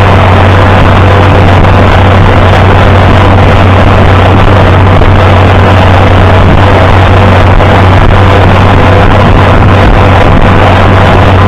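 International Harvester 560 tractor engine running steadily at an even speed while driving, loud and unchanging.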